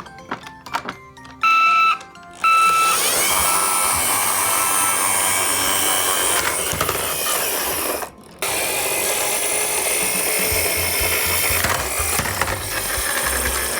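Toy ambulance sounds: a few clicks, then two short loud electronic siren beeps about a second and a half in, followed by a dense whirring, mechanical sound mixed with music and toy siren tones that drops out briefly about eight seconds in.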